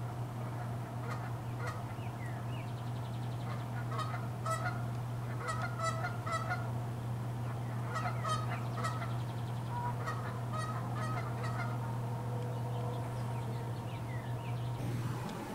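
Geese honking, in several overlapping bursts of calls that die away after about twelve seconds, over a steady low hum.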